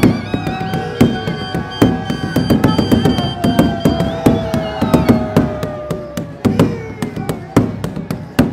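Dhamal drumming on large kettle drums, fast and loud, with a long held pitched note above it that slides slowly down.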